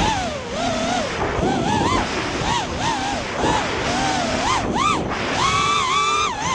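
Racing quadcopter's brushless motors and propellers whining, the pitch swooping rapidly up and down as the throttle changes, over a rushing noise of wind and airflow.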